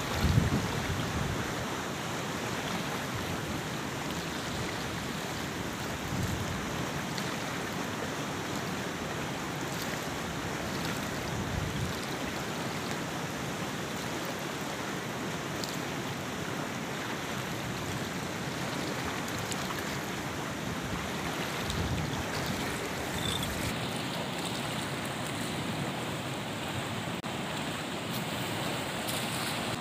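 Steady rushing of flowing river water, with wind now and then buffeting the microphone in short low thumps.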